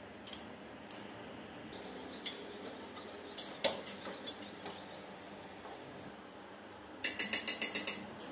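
Hand tools clicking and clinking against a motorcycle's fasteners and metal parts. There is one sharper click about a second in, a scatter of small ticks after it, and a quick run of about eight clicks near the end.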